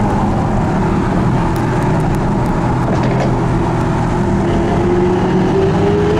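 Lamborghini Aventador S's V12 engine running at speed with road noise. Its pitch holds fairly steady, then rises from about four seconds in as the car accelerates again.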